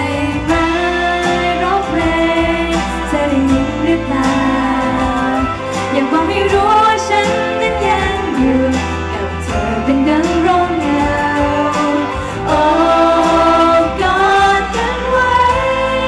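A young woman singing a Thai pop song live into a handheld microphone over backing music with a steady drum beat and bass.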